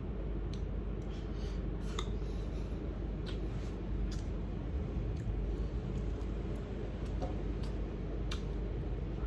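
A person chewing food, with a few sharp clicks scattered through, over a steady low hum.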